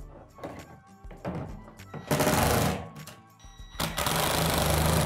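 Cordless drill driving screws into a plastic shed roof cap in two runs, a short one about two seconds in and a longer one near the end, over background music.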